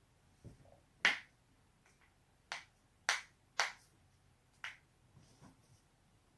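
Joints being cracked: five sharp pops spaced roughly half a second to a second apart, with a few fainter pops in between.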